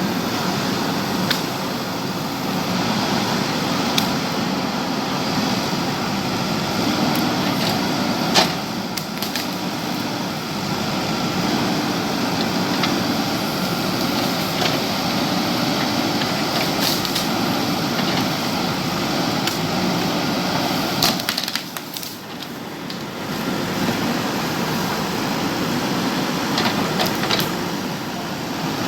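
JCB backhoe loader's diesel engine running steadily under work, with a few sharp knocks now and then and a short drop in level about 22 seconds in.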